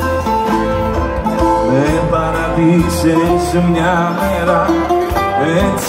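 Live band playing a Greek popular song through the PA, with a plucked string lead and a steady heavy bass beat.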